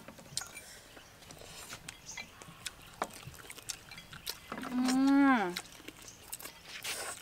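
Faint scattered crunches and clicks of people eating fried chicken with chopsticks. About five seconds in, a woman gives one drawn-out vocal exclamation that rises and then falls in pitch.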